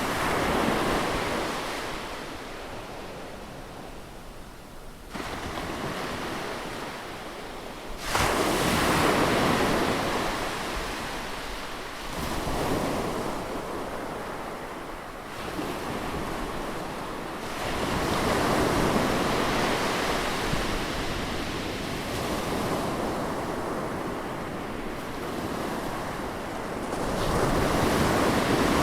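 Ocean surf: waves breaking on the shore one after another, about six rushing surges that swell and wash back, the loudest starting about eight seconds in.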